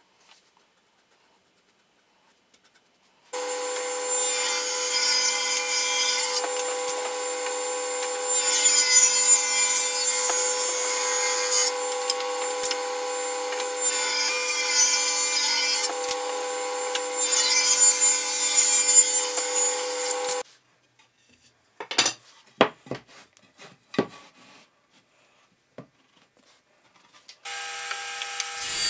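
Table saw running with a steady whine and ripping a block of softwood, starting about three seconds in; the cutting noise swells twice as the blade works through the wood. It stops suddenly, a few sharp knocks follow, and the saw runs again near the end.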